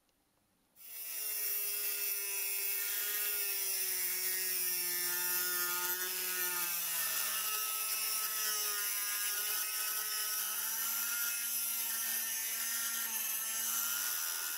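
Handheld rotary tool's motor whining as its small abrasive cut-off disc grinds a slot through a steel ring, with a hissing grind over the whine. It starts suddenly about a second in, and its pitch sags and recovers slightly as the load on the disc changes.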